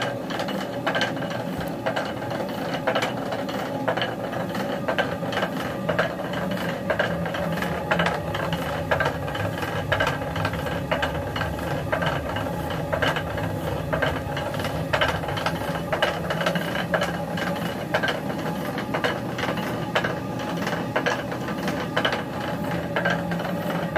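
Water-driven stone mill grinding: the upper millstone turns with a steady grinding noise while the wooden feed stick under the grain hopper rattles against the turning stone in rapid, irregular knocks that shake grain down into the eye of the stone.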